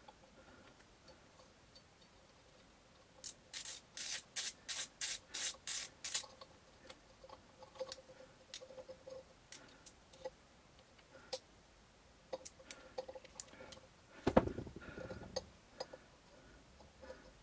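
A quick run of about nine rubbing or scraping strokes, about three a second, then scattered light clicks and taps of hand work, with one heavier knock about fourteen seconds in.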